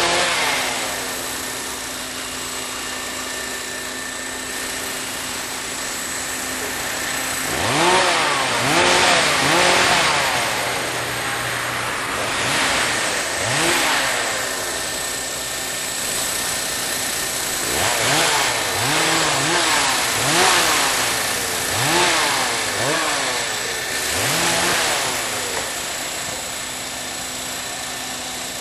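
Radio-controlled model helicopter flying, its motor and rotor running steadily with the pitch rising and falling again and again as it manoeuvres and passes, most often in the second half.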